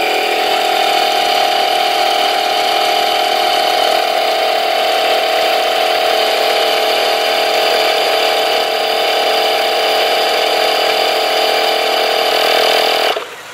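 Suaoki 12V portable tire inflator's compressor running with a steady, even hum as it pumps air into a car tire, then cutting off suddenly near the end as its auto shutoff reaches the preset 35 psi.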